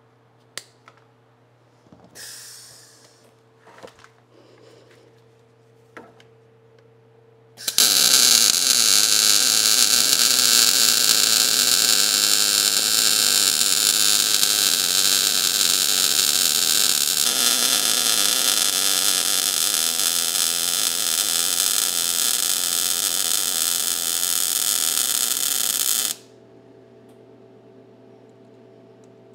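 MIG welder running a continuous bead on a steel pickup frame: a loud, steady buzz that starts about eight seconds in and stops abruptly about eighteen seconds later, shifting slightly in tone midway.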